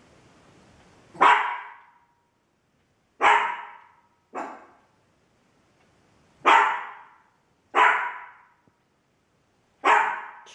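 A dog barking: six single loud barks, one to two seconds apart at an uneven pace.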